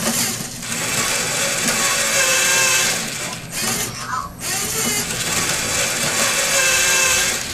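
LEGO Mindstorms NXT servo motors and plastic gears whirring as a colour sorter turns its four-section ball tray. The whirring runs in two stretches with a short pause a little past the middle.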